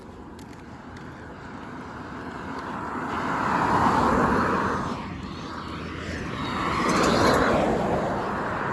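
Road traffic passing: vehicles go by one after another, their tyre and engine noise swelling to a peak about four seconds in and again about seven seconds in. No horn sounds.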